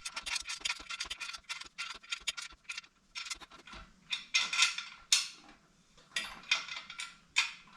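Ratchet wrench clicking rapidly as bolts are tightened down, followed by a few sharper metallic clanks of steel parts and tools.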